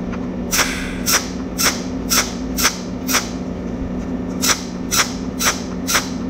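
Cold welding machine laying spot welds on a galvanized steel ring, each arc pulse a short zap, about two a second, with a pause of about a second and a half in the middle. A steady low hum runs underneath.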